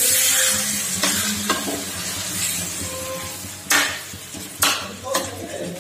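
Water poured into a hot kadai of fried chickpea masala hisses and sizzles, loudest at first and fading, while a steel spoon stirs through it. The spoon knocks sharply against the pan a few times in the second half.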